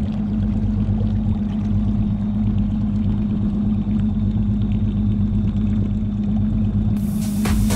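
Evinrude E-TEC 150 two-stroke direct-injection outboard motor running steadily with an even low hum. Dance music with a beat starts near the end.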